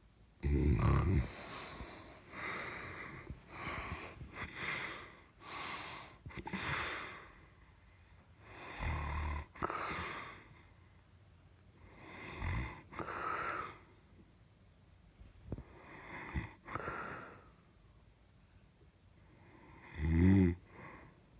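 Snoring: a run of rough, low rattling snores alternating with breathy, hissing breaths, one every few seconds. The strongest snores come about half a second in and again near the end.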